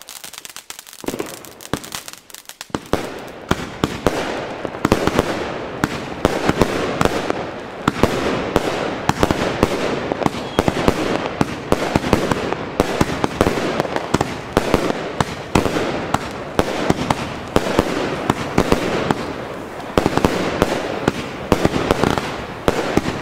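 Two consumer fireworks batteries, Funke Frozen Blood and Funke Kamuro Variations, firing together. A few scattered shots come first, then about two and a half seconds in a rapid, unbroken run of launch shots and bursts begins.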